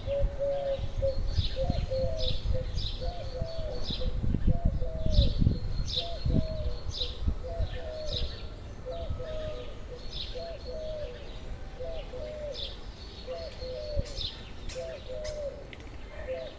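Garden birds calling: a short, low, cooing phrase repeated over and over, about once a second, with short high chirps above it. A low rumble sits under the first half.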